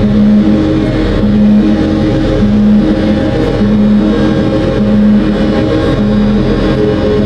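Live electronic music from a modular synthesizer: a deep steady drone under a repeating figure of short low tones, about one a second, alternating with a slightly higher tone.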